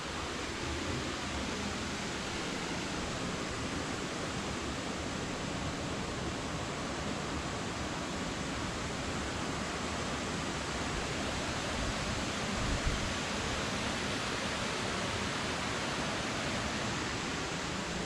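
Steady rush of water from a waterfall, a constant even hiss with no change, and one brief low thump about two-thirds of the way through.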